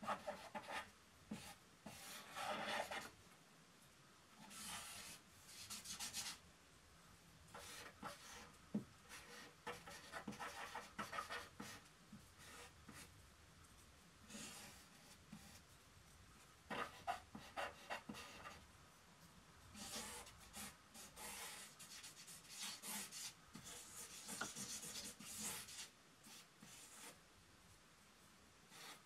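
Faint scratching and rubbing of a drawing tool on paper, coming in irregular bursts of quick strokes that last a second to a few seconds, with short pauses between.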